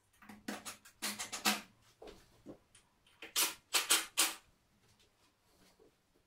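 Cordless screwdriver with a Phillips bit driven in short trigger bursts, running screws into wall plugs for the mirror's fixing clips. Two runs of quick bursts, the second briefer and louder.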